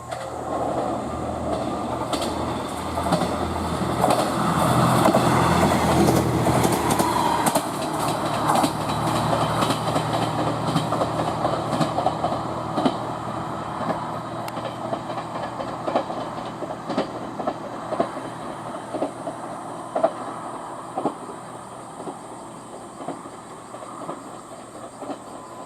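A train passing through the station: its running noise swells to a peak about five seconds in, then fades. Rhythmic wheel clicks over the rail joints go on as it draws away.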